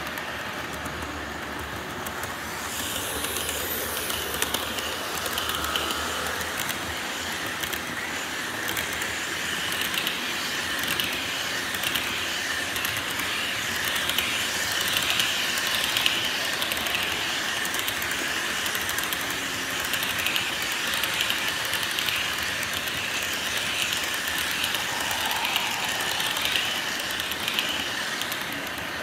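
HO scale model freight train rolling past on sectional track: a steady, busy clicking rattle of small metal wheels over the rail joints. It grows louder about two and a half seconds in and carries on as the cars go by.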